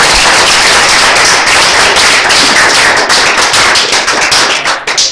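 Audience applauding, with one pair of hands clapping close by; the clapping thins out near the end.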